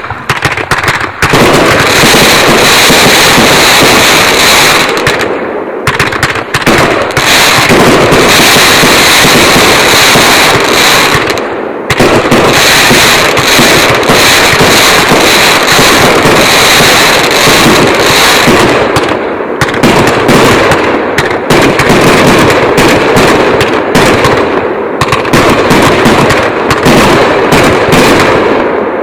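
Pyro Demon 1500-gram finale firework cake firing: a loud, dense, continuous barrage of shots and bursts, with a few brief lulls between volleys.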